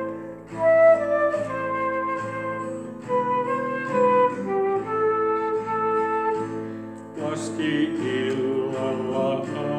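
Transverse flute playing a slow melody over acoustic guitar accompaniment; about seven seconds in the flute stops and the guitar carries on alone.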